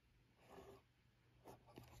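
Faint handling of a small cardboard box: a soft rub of fingers on the card about half a second in, then a couple of light taps later.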